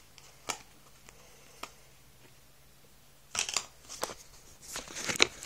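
Plastic CardSharp credit-card folding knife being handled in the fingers: a few light separate clicks in the first couple of seconds, then a denser run of sharper clicks and rustling in the last two seconds.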